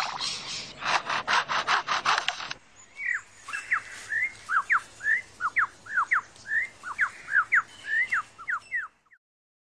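Superb lyrebird imitating a chainsaw: rasping, sputtering strokes for about two and a half seconds. It then switches to a run of quick, sweeping whistled notes, about three a second, which stop near the end.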